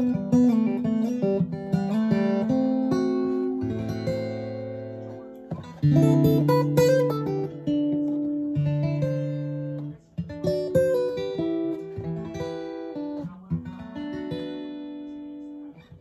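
Martin DRS-1 Road Series dreadnought acoustic guitar played fingerstyle: picked chords and single notes left ringing, in phrases broken by two short pauses, about six and ten seconds in.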